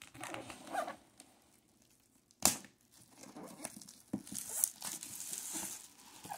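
Clear plastic shrink-wrap being torn and pulled off a box, crinkling, with a single sharp click about two and a half seconds in and denser crinkling after it.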